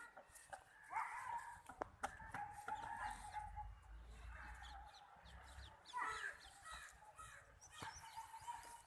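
A rooster crowing: a long call about a second in and another about six seconds in.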